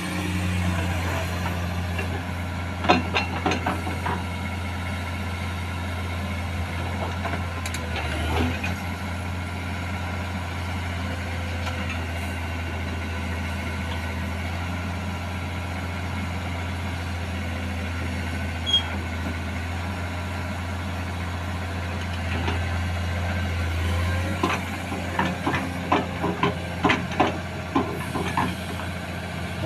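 Komatsu PC210 hydraulic excavator's diesel engine running steadily under load while it loads rock into a steel dump truck. A few knocks come a few seconds in, and a run of clattering rock impacts comes in the last few seconds as the bucket is emptied into the truck body.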